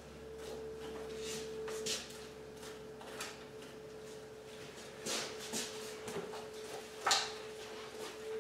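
Deer hide being worked off a hanging carcass by hand and knife: several short scrapes, the loudest about seven seconds in, over a faint steady hum.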